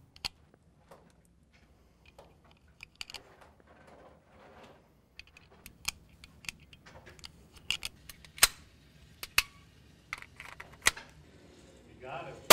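Pistol cartridges being handled and pressed into a magazine: a series of small, sharp metallic clicks and rattles, irregularly spaced.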